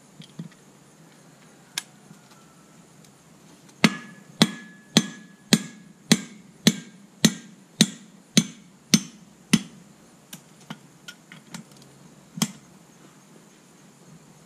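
Hammer blows on a 1976 Chevy C30 rear brake drum and hub assembly, knocking the wheel studs out: a single strike, then a run of about a dozen sharp metal strikes roughly two a second, then a few lighter taps and one last hard strike.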